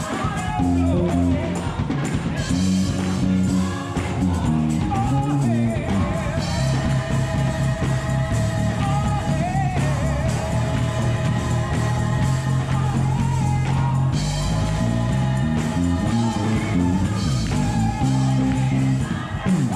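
Gospel song with a sung lead and choir voices over a band, with a headless Wing electric bass playing the low line through an amplifier.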